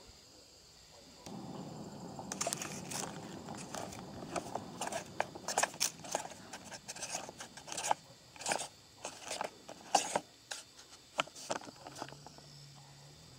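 The tool-less chain tensioner knob on an Oregon 40V battery chainsaw being turned by hand: a run of irregular sharp clicks over a rustling scrape, stopping near the end.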